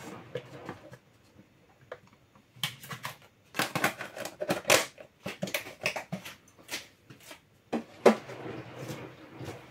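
Plastic food tub being handled: a quick run of clicks and knocks as it is worked with both hands and its lid pressed on, then one sharp knock near the end.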